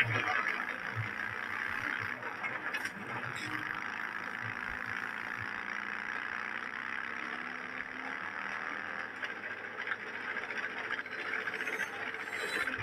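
Motorcycle with sidecar running at speed along a dirt road: steady engine and road noise from a film soundtrack.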